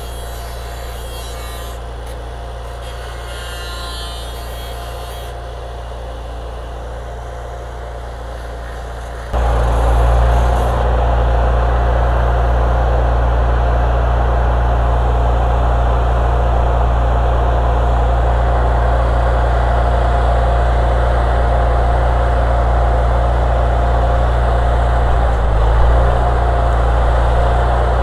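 Engine of a mobile welding unit running steadily. About nine seconds in it suddenly gets louder and holds there, with a steady whine over the engine note.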